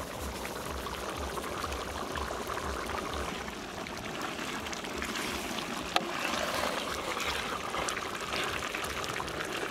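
A large pot of tamarind fish gravy bubbling at a steady boil as a ladle stirs it, with one sharp click about six seconds in.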